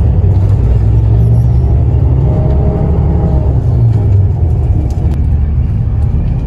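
Steady low rumble of engine and road noise, heard from inside a moving road vehicle.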